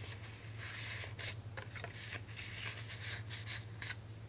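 Paper rustling and sliding in short, irregular scrapes as a paper journaling card is slipped back into a pocket page of a handmade journal and the pages are handled.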